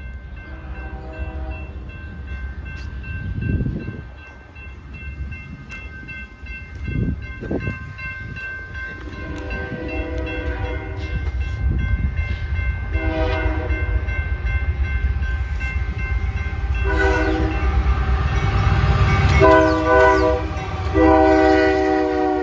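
Union Pacific diesel locomotive sounding its horn for a grade crossing: six blasts, mostly long with a short one near the end, getting louder as the train closes in. Under the horn the locomotive's engine and wheels rumble, rising as it reaches and passes.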